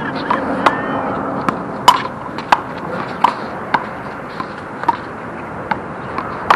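Rubber handball being played in a one-wall handball rally: sharp smacks of the ball off bare hands, the concrete wall and the court, about a dozen at uneven intervals, sometimes two close together.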